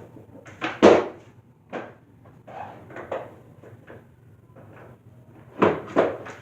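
Skateboard knocking and clattering on homemade ramps: a string of sharp knocks, coming faster near the end.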